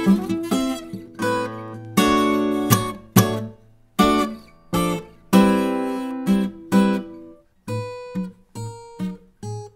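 Acoustic guitar played solo, chords and bass notes plucked in a steady rhythm and left to ring. In the last couple of seconds the notes become shorter and more spaced out.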